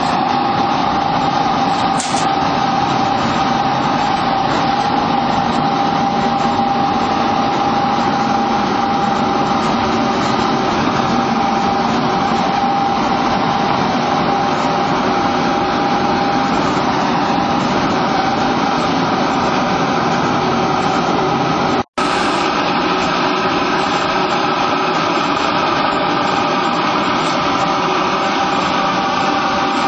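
Small feed pellet production line running: its mill, pellet press and conveyor make a loud, steady machine noise with a constant high whine. The sound drops out for an instant about 22 seconds in.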